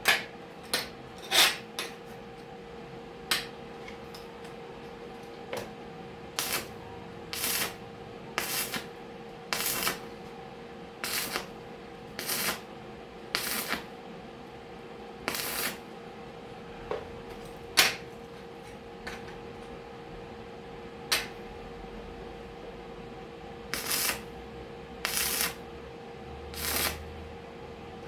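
Repeated short metallic knocks and clinks, irregular and roughly one a second, as metal parts are handled and tapped, over a steady electrical hum.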